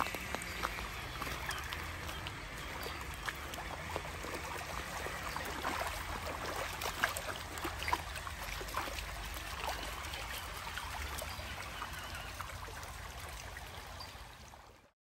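Shallow creek water running and trickling over stones, with many small splashes. It fades out near the end.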